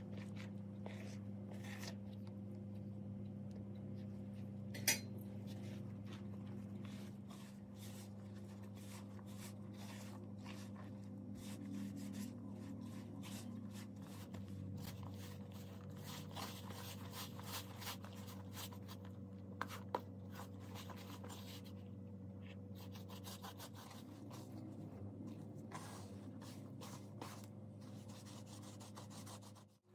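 Hands mixing and kneading sticky pizza dough in a plastic bowl: rubbing and scraping against the bowl's sides, with many small clicks and one sharper click about five seconds in, over a steady low hum.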